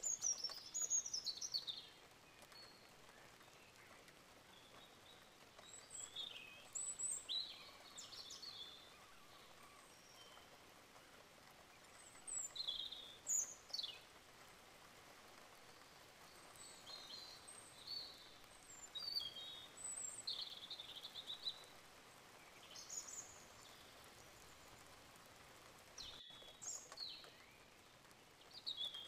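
Birds chirping in short, scattered high calls, some with quick downward sweeps, coming in clusters every few seconds over a faint steady hiss.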